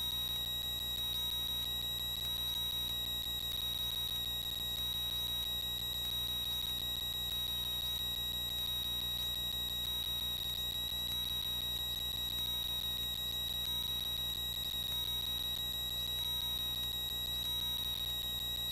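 Cessna 182Q cockpit audio through the headset intercom: a steady high-pitched electrical whine over a low, muffled drone from the engine.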